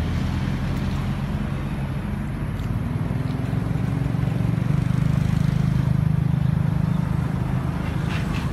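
Road traffic: a motor vehicle engine's low, steady hum, growing louder about halfway through and easing off near the end.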